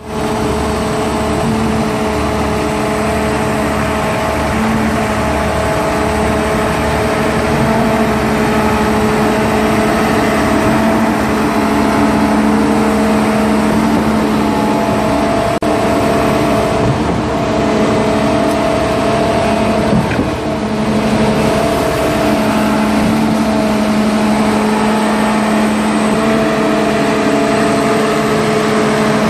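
Heavy engines of a transit mixer truck and a KCP KTP 2210 stationary concrete pump running steadily while concrete is fed into the pump's hopper, with a couple of brief knocks around the middle.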